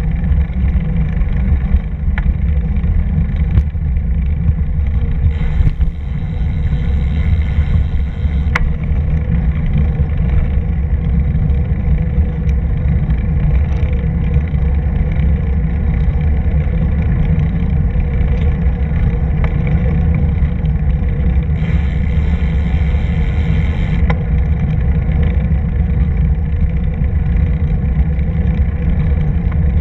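Wind buffeting the microphone of a camera moving at cycling speed: a loud, steady, low rumble with no let-up.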